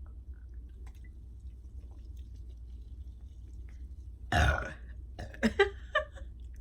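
A woman's loud burp, about four seconds in and lasting about half a second, brought up by the gas from drinking sparkling mineral water. A few shorter sounds follow it.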